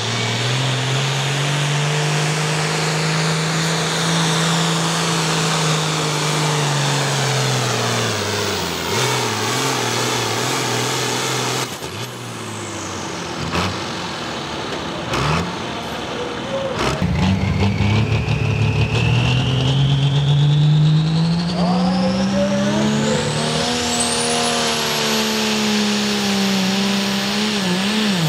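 Ford pulling tractors' diesel engines running hard under load as they drag a sled, the engine note swelling and then sinking. In a second pull the engine revs up, and a high whine climbs steadily over several seconds.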